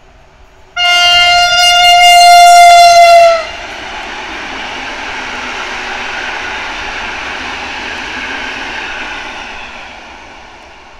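An electric multiple unit sounds one long, loud horn blast of about three seconds on a single steady tone. The blast starts just under a second in. After it comes the rumble and hiss of the train passing at speed, which fades near the end.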